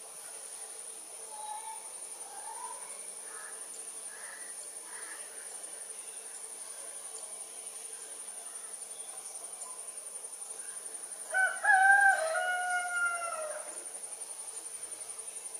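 White-throated kingfisher calling: one loud call of about two seconds, falling slightly in pitch, comes in the last third. A few faint notes sound in the first five seconds.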